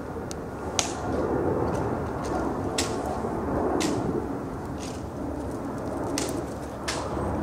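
Sharp clicks at uneven intervals, a second or so apart, over a steady low outdoor rumble.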